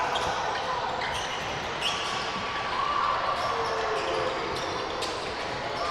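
A basketball bouncing on a hardwood gym floor during play, with scattered impacts and faint calls echoing around the hall.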